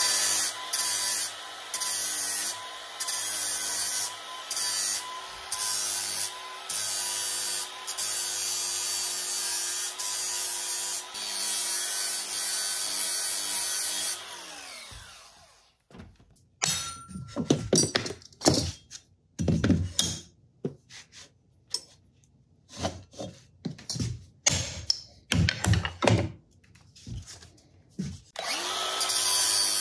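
Cordless angle grinder with a flap disc grinding metal: a steady motor whine with a harsh hiss that comes and goes every second or so as the disc bites and lifts. About 14 seconds in the grinder winds down, followed by scattered knocks and clatter, and it spins back up near the end.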